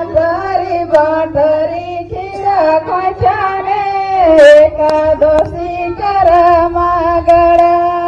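A woman singing a Karma puja folk song into a microphone, the melody carried in long held notes in phrases, with a few short clicks.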